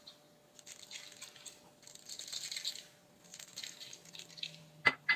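Sesame seeds sprinkled by hand, pattering lightly onto parchment paper and soft bun dough in several short rustling bursts. Near the end come two sharp clicks in quick succession.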